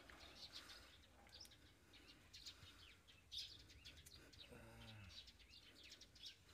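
Faint, repeated chirping of small birds, with one brief low murmur of a voice about four and a half seconds in.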